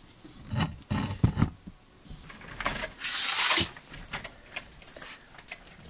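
Handling noise on a workbench: a few light knocks and clicks, then a rustle lasting about a second midway through.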